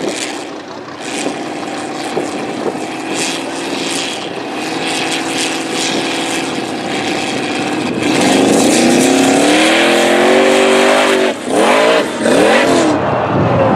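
Formula Offroad buggy engine revving hard under load as it climbs a steep, loose dirt hill with its tyres spinning. About two-thirds of the way in it goes to full throttle, louder and rising in pitch. Near the end it drops off briefly, is blipped up and down a couple of times, then cuts off.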